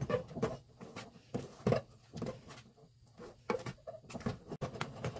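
Wooden spoon stirring thick rice-flour paste in a metal pot, scraping and knocking against the pot's sides and bottom in irregular strokes.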